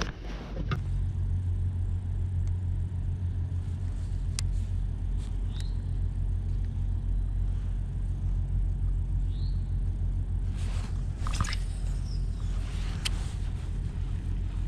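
A small boat motor starts about a second in and then runs at a steady low hum. A couple of faint short chirps and light clicks sound over it.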